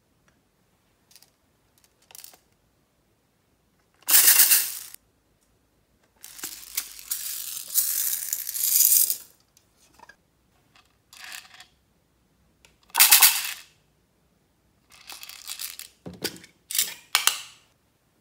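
Small plastic beads poured out of their containers onto slime in a glass dish, heard as a few separate pours of hard little pieces dropping, with short quiet gaps between.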